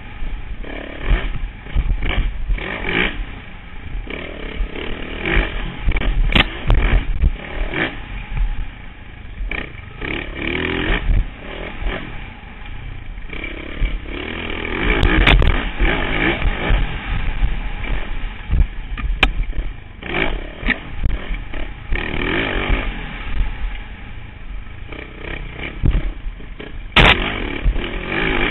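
Dirt bike engine heard from a helmet camera, revving up and falling off again and again on a rough trail. A few sharp knocks and rattles come from the bike hitting bumps.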